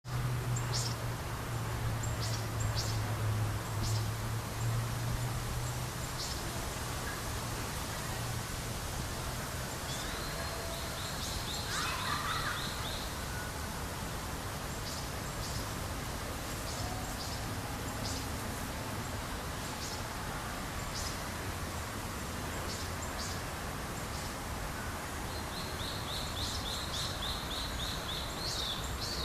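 A shallow stream babbling steadily, with small birds chirping over it. Twice a bird gives a rapid trill lasting a few seconds, about ten seconds in and again near the end. A low hum underneath fades out in the first third.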